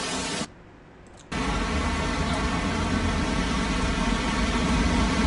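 Steady noise of heavy rain and flowing floodwater in a street. It drops away for under a second about half a second in, then comes back with a deeper low rumble.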